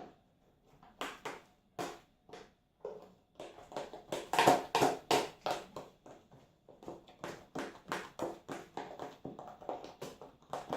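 Fluffy slime being squeezed and poked by hand, making a quick run of short wet pops and squelches that comes thicker from about three seconds in.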